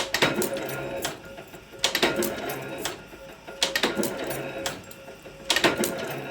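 A spoon-making machine running through a repeating cycle, about once every two seconds and four times here. Each cycle is a sharp clack, then about a second of rattling clatter, then a short lull.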